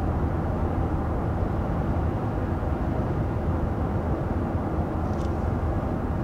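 Steady road and wind noise inside the cabin of a 2021 Honda Ridgeline cruising at 55 mph, an even low rumble and hiss that a sound meter puts at about 56.5 decibels.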